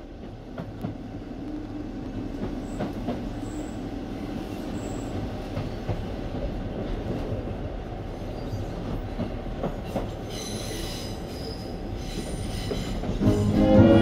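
Train running on rails with a steady rumble, and high-pitched wheel squeals a few seconds in and again around ten seconds in. Orchestral music with brass comes in loudly near the end.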